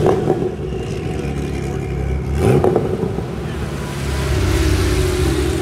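A car engine running at a steady rumble and blipped twice in quick revs that rise in pitch, one right at the start and another about two and a half seconds in.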